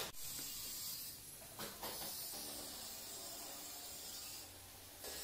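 Notched trowel spreading and combing cement tile adhesive over a concrete floor: a steady gritty scraping hiss, with one short knock a little under two seconds in.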